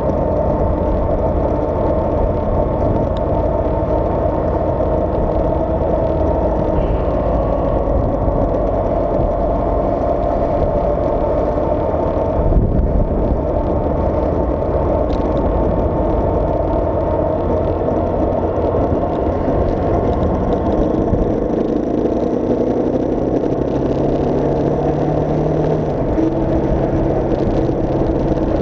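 Engine and road noise of a vehicle driving on a highway close behind a truck, heard from on board. There is a brief knock about halfway through, and later the engine pitch rises as the vehicle accelerates.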